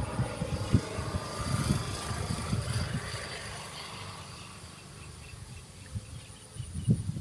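Wind buffeting the microphone in irregular low rumbling gusts, strongest at first and dying down over the middle, with faint high chirps in the later seconds.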